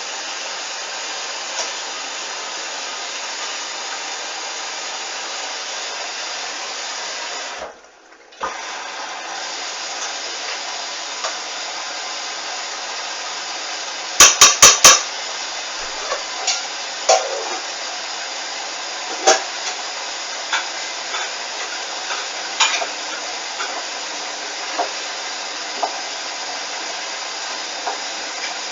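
Hoover washing machine filling with water for a rinse: a steady hiss of water running in, which cuts out briefly about eight seconds in. A quick run of four sharp clicks comes about halfway through, followed by scattered light knocks.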